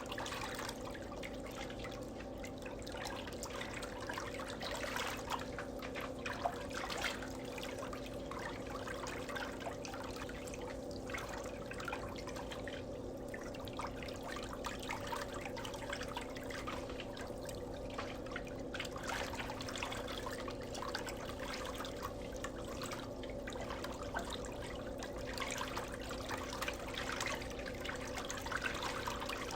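Water trickling and splashing in an irregular flicker over a steady low hum.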